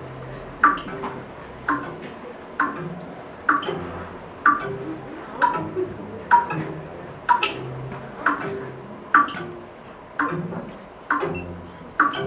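A steady series of sharp ticks, about one a second, each with a brief ringing ping.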